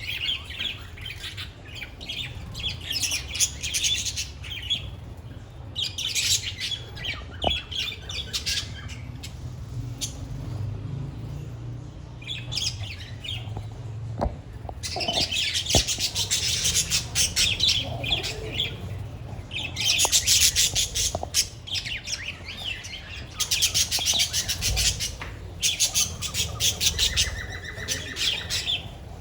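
A flock of budgerigars chirping and chattering together in bouts of a few seconds each, several birds at once, with a steady low hum underneath.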